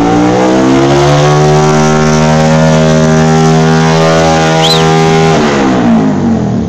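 A vehicle engine revved up and held at steady high revs for about four seconds, then let back down near the end. A brief high chirp sounds about two-thirds of the way through.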